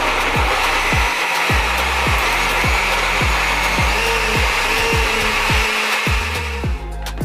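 Countertop blender running steadily, blending pineapple chunks and liquid into a smooth juice; the motor stops about a second before the end. Background music with a steady beat plays under it.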